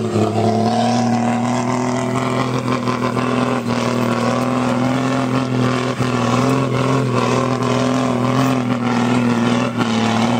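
Diesel engine of a REO M35A2 6x6 army truck held at full throttle while pulling a heavy load of sugarcane through mud. It gives a loud, steady drone that keeps one pitch throughout.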